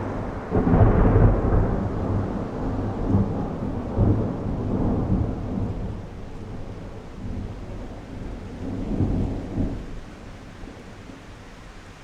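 Thunder rumbling over steady rain, loudest about a second in, with another swell about nine seconds in, then dying away to the hiss of rain.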